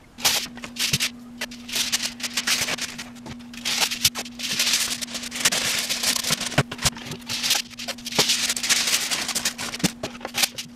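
Aluminium kitchen foil crinkling and rattling as it is wrapped and pressed around motorcycle fairing panels, sped up into a dense run of crackles and sharp clicks over a steady low hum.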